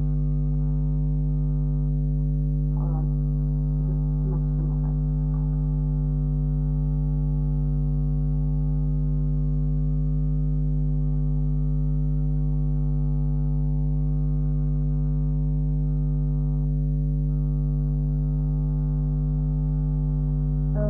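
Steady electrical mains hum, a low buzzing tone with a ladder of overtones, holding an even level throughout, with a couple of faint brief vocal sounds a few seconds in.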